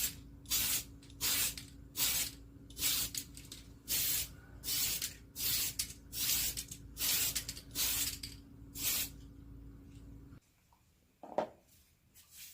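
Aerosol can of Tamiya PS polycarbonate spray paint, sprayed in short hissing bursts, roughly one and a half a second, for about nine seconds. A steady low hum runs underneath and stops about ten seconds in.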